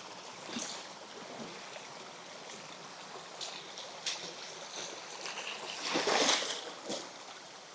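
River water running steadily, with a louder rush of noise about six seconds in.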